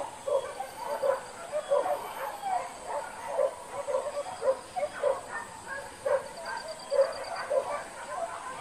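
Hunting dogs yelping and barking over and over, two or three short yelps a second, while giving chase to a wild boar.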